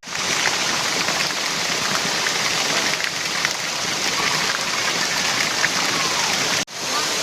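Waterfall crashing into its pool: a steady rush of falling, splashing water, like heavy rain. It cuts out for a moment near the end.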